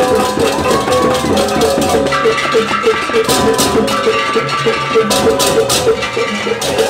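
Balinese gamelan percussion of the kind that accompanies an ogoh-ogoh parade: a fast, even metallic beat on gongs, with cymbals clashing several times in the second half.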